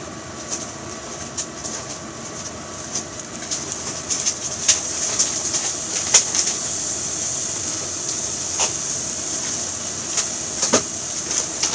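Milk sizzling in a hot frying pan: a steady hiss with many small crackling pops, growing louder about four seconds in as the milk starts to bubble.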